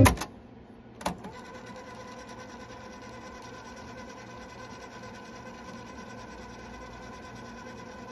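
Sanyo RD-5030 cassette deck's transport keys click, first to stop playback and about a second later to start a wind. The deck's motor and freshly replaced belts then whir steadily as the tape winds quickly forward.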